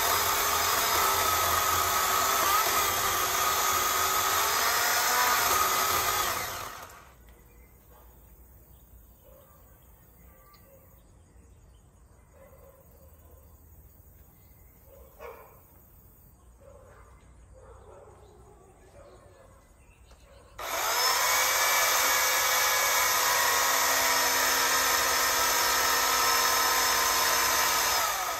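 Electric chainsaw running as it cuts into a tree trunk, a steady motor whine for about seven seconds before it stops. After a long quiet stretch with only faint small sounds, it starts again about 20 seconds in and runs steadily until it winds down at the very end.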